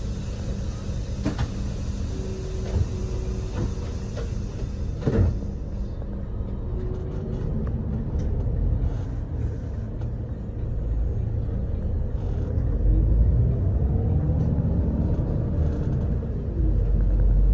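Low rumble of a road vehicle on the move, heard from inside, with a few sharp knocks in the first half. Near the end a whine rises in pitch and the rumble grows louder as it speeds up.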